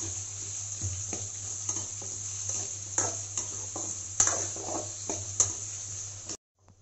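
Sliced onions and green chillies sizzling in hot oil in a metal pan, stirred with a spoon that scrapes and clinks against the pan. The sound cuts off suddenly near the end.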